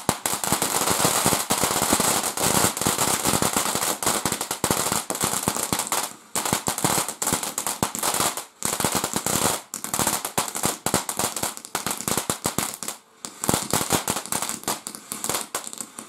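Garden firework fountain spraying sparks with dense, rapid crackling and popping, dipping briefly about six, eight and a half and thirteen seconds in. It was sold as a 'no bangs' fountain that is not supposed to make any noise, yet it is loud.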